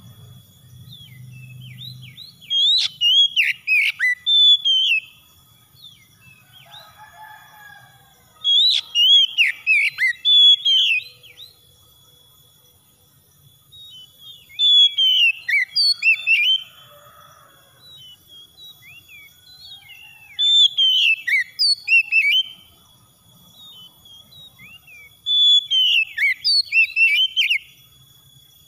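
Male Oriental magpie-robin singing in five loud bursts of quick whistled phrases, each a couple of seconds long, with pauses of a few seconds between them.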